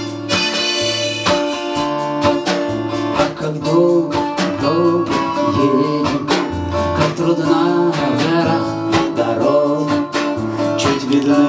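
Live acoustic guitar strummed steadily as the instrumental introduction to a song, with a bending melody line played over it.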